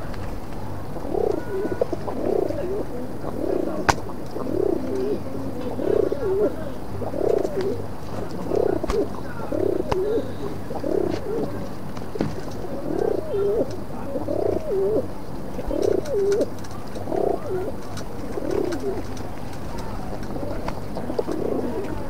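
Pigeons cooing, a long run of low coos about one a second that dies away near the end. A single sharp click sounds about four seconds in.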